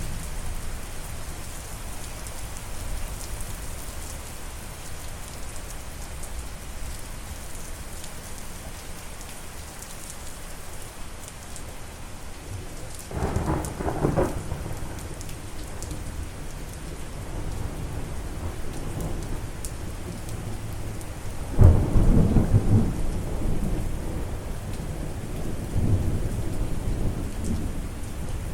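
Steady rainfall with thunder: a rumble about halfway through, then a louder clap of thunder that rolls on for several seconds.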